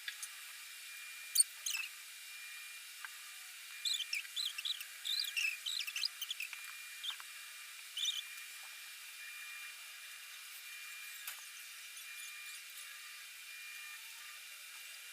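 Pencil strokes on paper during sketching: a sharp tap about a second and a half in, then a cluster of short scratchy, slightly squeaky strokes between about four and seven seconds in, and a couple more around eight seconds, over a faint steady hiss.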